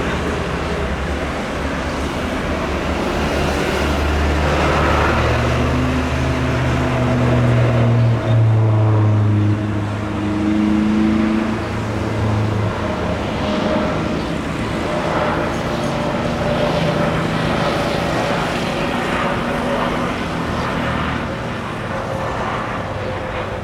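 Engines running with a low, steady drone that swells about four seconds in and eases after about thirteen seconds.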